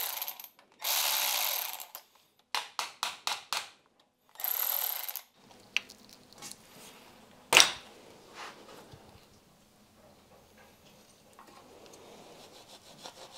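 Cordless electric ratchet running in three short bursts, undoing the bolts of an engine's upper coolant neck, with a quick run of ratchet clicks between the second and third bursts. A single sharp knock comes about halfway through, then faint handling sounds.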